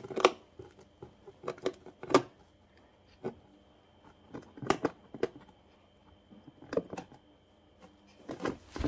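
Guinea pigs gnawing on an edible house made of pressed hay topped with carrot: irregular crisp crunches, roughly one or two a second, with short gaps between.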